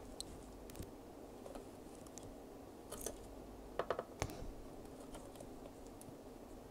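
Faint scattered clicks and taps of a soldering iron tip and a thin wire tool against the pins of a chip on a circuit board while it is being desoldered, with three quick clicks about four seconds in and another just after.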